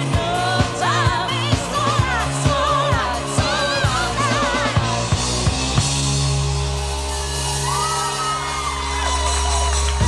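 Live pop band playing: singing with vibrato over a steady drum beat. About six seconds in the drums stop and the band holds a long closing chord while the singer sustains a note.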